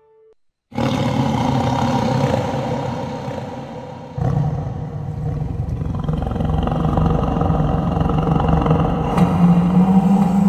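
A deep, rumbling roar-like sound effect on a film soundtrack. It starts suddenly about a second in, eases off, surges lower and louder about four seconds in, and swells again near the end.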